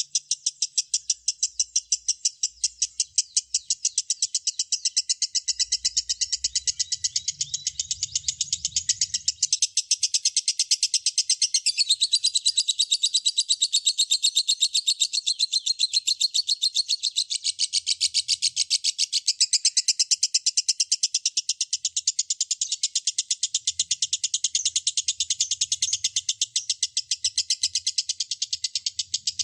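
Lovebird chattering in a long unbroken song: rapid high chirps, about five a second, without a pause.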